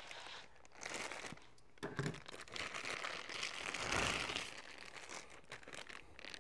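Packaging crinkling and rustling as the wheelchair's battery charger is unwrapped, handled in irregular bursts and loudest a little past the middle.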